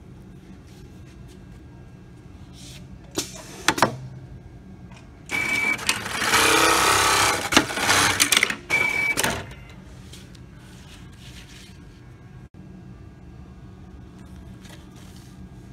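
Programmable pattern sewing machine stitching a label onto a cut fabric part: two sharp clicks a little after three seconds in, then the machine runs its stitch cycle for about four seconds and stops, with a short high tone as the run starts and again as it ends. A steady low hum runs underneath.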